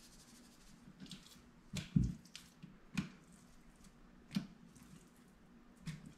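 Five or so soft knocks and taps as a seasoning shaker and a plate of raw fish fillets are handled on a kitchen counter, the loudest a dull thud about two seconds in, over a faint steady hum.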